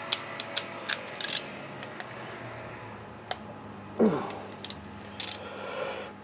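Irregular small metal clicks and clinks of a hand tool fitted and worked on the clutch end of a nitro RC engine. About four seconds in there is a short whirr that falls in pitch.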